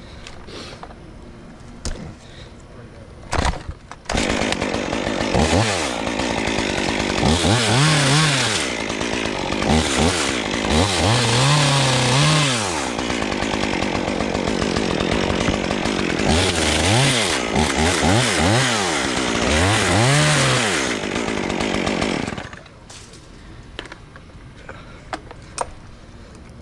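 Chainsaw starting suddenly and running, revved up and down in several bursts, then cutting off near the end; a few sharp knocks come just before it starts.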